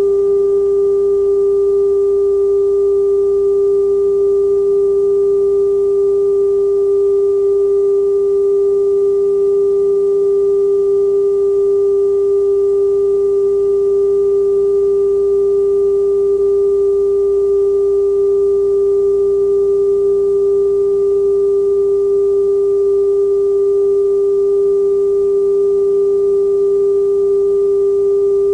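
Television station test tone: a single steady mid-pitched tone held unbroken behind a test pattern card, with a faint low hum beneath.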